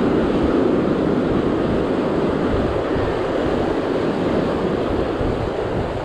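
Ocean surf breaking and washing over shore rocks, a steady rushing noise, with wind buffeting the microphone as a low, uneven rumble.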